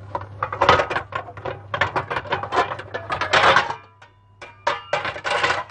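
Kitchen containers and utensils being handled on a counter: a quick run of knocks and clinks, with three louder scraping, rustling bursts about a second in, midway and near the end.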